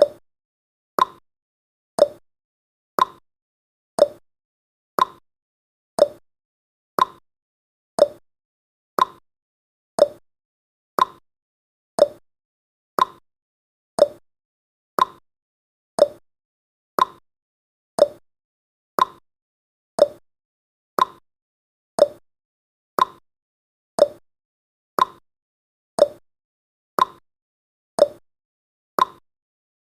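Countdown timer's ticking sound effect: one short, sharp tick every second, each alternate tick a little higher than the one before, like a clock's tick-tock.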